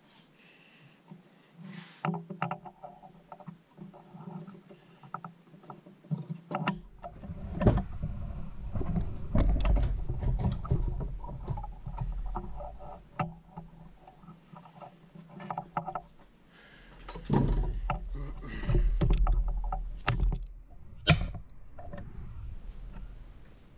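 Irregular metallic clicks and knocks of hands, a setting tool and a detent cap and snap ring against a transmission case during fitting, with the sharpest knocks about 8 and 21 seconds in. Low rumbling handling noise comes and goes underneath.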